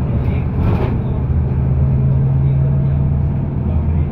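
A motor vehicle running steadily, a loud low hum with road noise under it, and a brief hiss just under a second in.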